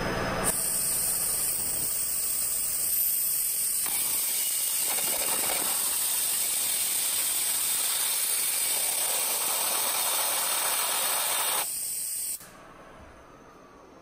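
A waterjet cutter's ultra-high-pressure water jet blasting through a coffee pod into a lidded steel mug, with water spraying out around the lid. It makes a steady hiss that starts about half a second in and cuts off abruptly about a second and a half before the end.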